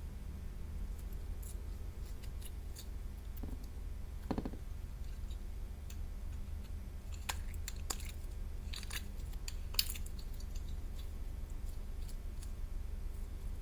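Slime being worked by hand: scattered small clicks and crackles, with one short squelchy rattle about four seconds in, over a steady low hum.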